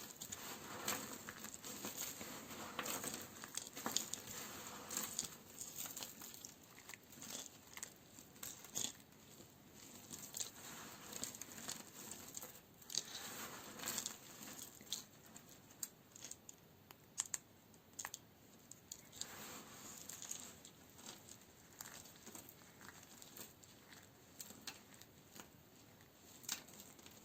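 A knife cutting through dry bar soap, making crisp crackling and crunching as it cuts, with many small sharp snaps and short rustling scrapes scattered irregularly.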